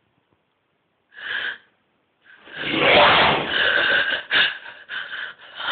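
A person's breathy, rasping vocal sounds: one short burst about a second in, then a louder, longer run of rasps broken into several pulses from about two seconds on.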